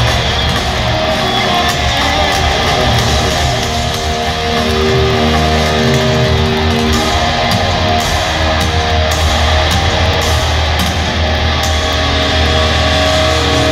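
Heavy metal band playing live: distorted electric guitars over a heavy bass and drums.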